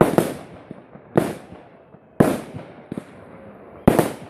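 Fireworks shells bursting overhead: four loud bangs at roughly one-second intervals, each trailing off in an echo, with a few smaller pops in between.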